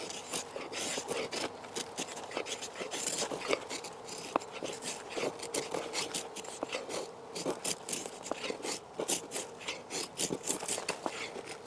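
Two knife blades shaving curls down wooden sticks to make feather sticks for fire-lighting. The steel scrapes along the wood in many quick, irregular strokes, the two carvers overlapping.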